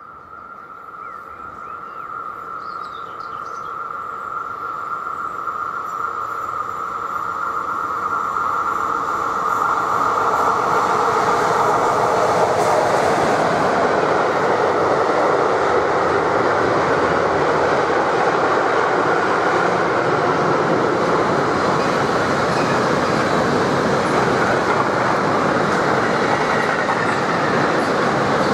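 A freight train of car-transport wagons passing on the rails. It starts with a steady high tone that grows louder as it approaches, then turns into the steady noise of wagon wheels rolling over the track, louder from about ten seconds in and holding.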